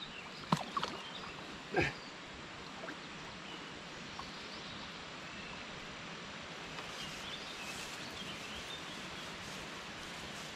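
Two short splashes, about half a second and two seconds in, as a flathead catfish is slipped back into a shallow river, then the steady wash of the flowing water with a few faint bird calls.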